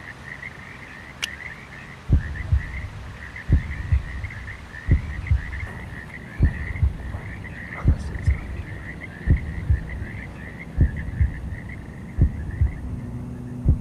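A low double thump, heartbeat-like, repeating about every second and a half, starting about two seconds in. Under it runs a steady chorus of high, rapid chirping calls that fades out near the end, and a low hum comes in near the end.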